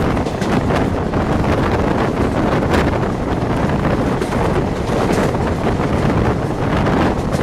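Wind buffeting the microphone at the open door of a fast-moving train, over the steady running rumble of the trains on the rails.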